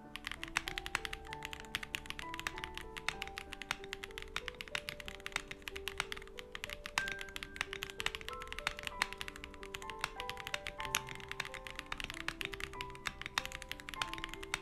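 Fast, continuous typing on a stock Akko ACR PRO75, a gasket-mount acrylic mechanical keyboard with Akko CS Crystal switches, giving a dense run of irregular key clacks. Background music with piano-like notes plays underneath.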